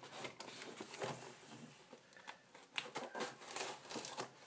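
Utility knife blade scraping and slicing through the packing tape along a cardboard box's edge, in short faint scratchy strokes with a brief pause about halfway through.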